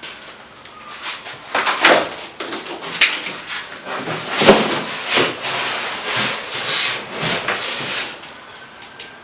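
Homemade foam kayak hull being lifted and moved about, with irregular scraping, rubbing and knocking.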